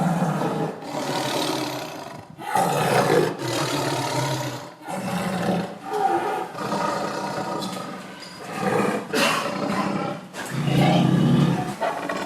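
Tiger growling and roaring: a run of deep, throaty calls, each about a second long, one after another.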